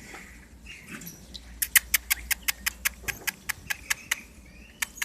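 An animal's rapid clicking or chattering call, sharp clicks about six a second, in a long run followed by a shorter one starting near the end.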